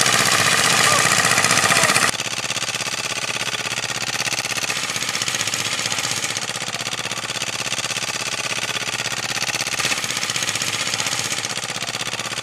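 A two-wheel walking tractor with a front sickle-bar mower cutting standing wheat: its small engine runs steadily under a fast, even pulsing chatter. The sound drops slightly and changes abruptly about two seconds in.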